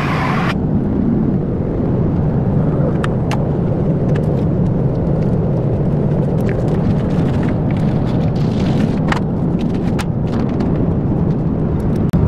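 Steady in-flight cabin noise of an Airbus A350-900: a low rumble of airflow and engines. A brief hiss right at the start and a few sharp clicks and knocks of handling break through it.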